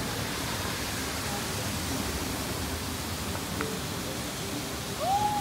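Steady rushing noise of falling water. About five seconds in, a short tone rises and then falls away.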